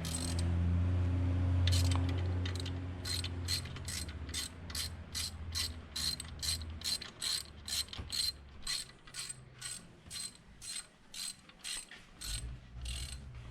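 Hand ratchet clicking in a steady rhythm of about two to three clicks a second as a bolt is worked loose on a VQ37VHR engine block. A low hum sits under the first few seconds and fades out.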